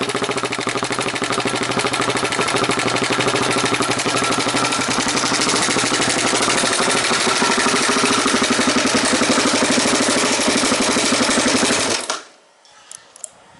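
Suzuki DR-Z400SM's single-cylinder four-stroke engine idling through an aftermarket silencer, a steady rapid exhaust beat. About twelve seconds in the engine is switched off and the sound stops abruptly.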